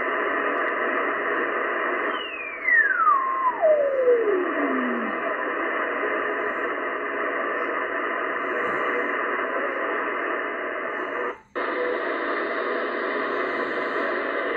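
Shortwave band noise, a steady static hiss, from a Yaesu FTdx10 transceiver's receiver in sideband mode while the dial is tuned. About two seconds in, a carrier whistle falls steadily from high to low pitch over about three seconds as the dial sweeps past it. Near the end the audio cuts out for an instant and comes back brighter and wider as the receiver switches to AM.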